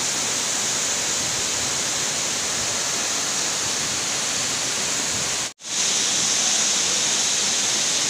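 Steady rushing of a waterfall pouring into its plunge pool. It breaks off for an instant a little over five seconds in, then carries on as before.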